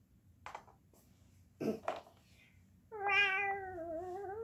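Two light knocks of plastic toy figurines being set down on a wooden floor, then, about three seconds in, one long wavering meow voiced by a person imitating a cat.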